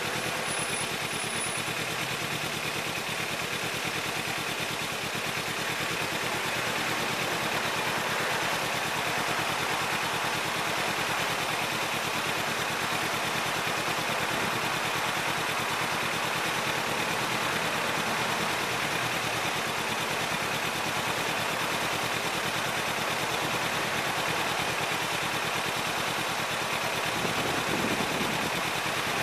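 Kawasaki Ninja 300's parallel-twin engine idling steadily, heard close through a camera bolted to its fuel tank.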